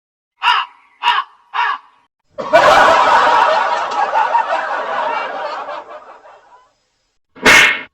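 Laughter: three short snickers about half a second apart, then a long stretch of laughing that fades away, and one more short burst near the end.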